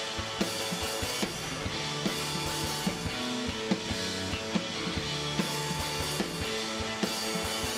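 Live indie rock band playing an instrumental passage: electric guitars over a drum kit keeping a steady beat.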